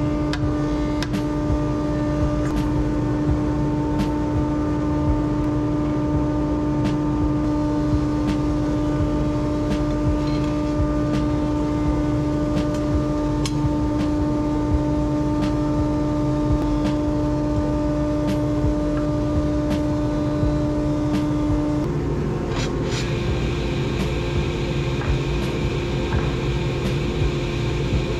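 Woodworking power tool running steadily in a shop, a constant hum over a rumbling noise. About three quarters of the way through, the hum steps slightly higher and the sound changes.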